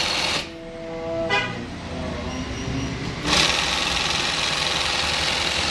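Industrial shoe sewing machine stitching two thick layers. Its clatter breaks off about half a second in, leaving a brief steady motor whine, and starts again a little after three seconds in.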